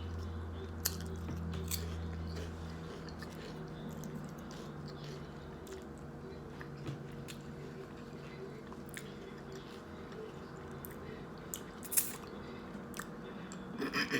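A person chewing and biting a grinder salad sandwich close to the microphone, with scattered small wet mouth clicks. A low steady hum sits underneath and stops about three seconds in.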